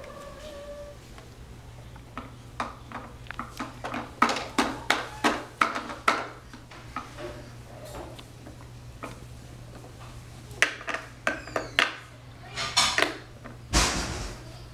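Hard objects clattering and knocking in quick runs of short taps, with a louder thump near the end.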